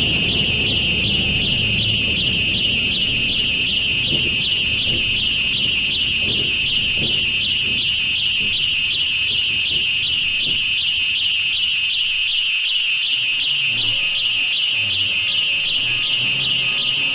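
Experimental noise piece made from railroad recordings: a loud, shrill, rapidly pulsing alarm-like tone holds steady throughout, over a low rumble that fades out about two thirds of the way in. A few low hums come in near the end.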